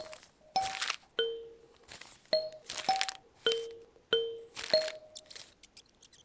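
Kalimba plucked one note at a time, about one note every half second, each note ringing briefly and dying away. Short crunchy bursts of paper rustling fall between and over the notes.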